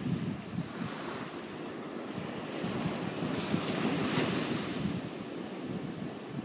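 Ocean surf washing ashore, swelling to a peak about four seconds in, with wind buffeting the microphone in low thumps.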